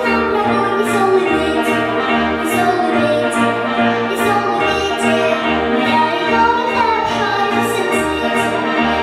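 Orchestral backing music with a steady pulsing bass beat and regular high percussion hits under moving melody lines.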